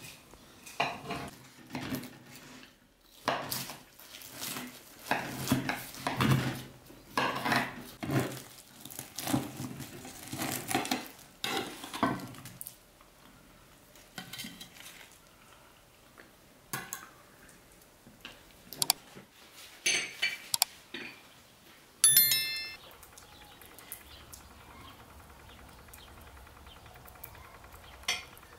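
Cutlery and dishes clattering, with spoons knocking against bowls in quick irregular clicks for the first half. It then falls quieter, with a few scattered clinks and one sharp ringing clink about two-thirds of the way through.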